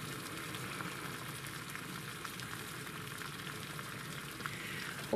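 Water boiling in a metal camp pot on a canister gas stove, the burner just turned down toward a simmer: a steady bubbling hiss.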